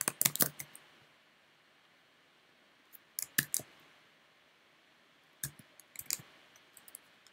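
Computer keyboard keys clicking in short bursts of typing: a quick run of keystrokes at the start, a few more about three seconds in, and another cluster around five and a half to six seconds.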